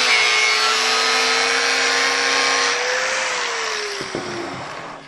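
Handheld angle grinder running at full speed with a steady whine, trimming the edge of a cladding panel. About three seconds in, the grinding noise stops, and the whine falls in pitch and fades as the grinder is switched off and spins down.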